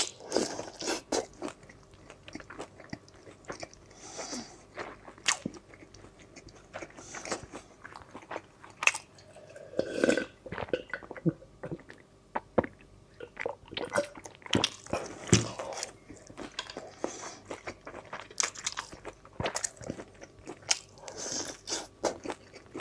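Close-miked eating: wet biting, chewing and lip-smacking on grilled sausage and meat in chili oil, a steady stream of sharp, irregular mouth clicks. Partway through there is a short pause to drink from a mug.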